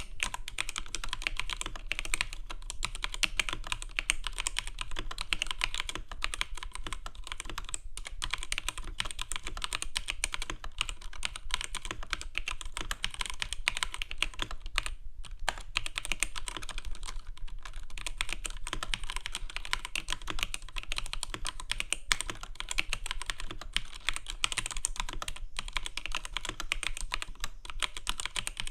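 Continuous fast typing on a computer keyboard: a dense stream of key clicks and clacks, easing off briefly twice.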